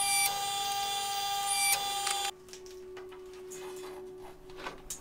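Forging press running as it squeezes a hot steel billet: a steady motor whine with a short rising sweep and click about every second and a half, as the press works. The whine cuts off suddenly about two seconds in, leaving a quieter low hum and faint clicks.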